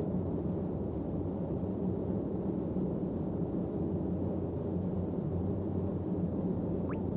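A steady low hum over an even rumble, with one short rising chirp near the end.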